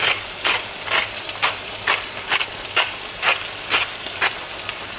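Salt being ground from a hand-held salt mill over the pan in quick, regular crunchy strokes, about two a second. Under them, chicken liver and onions sizzle steadily as they fry in butter and oil.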